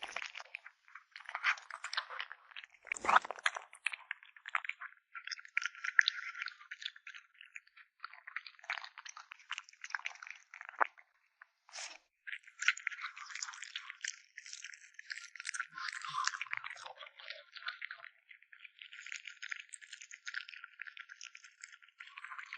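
A cat chewing and crunching its food: quick, irregular wet crunches and bites, with short breaks, and one heavier crunch about three seconds in.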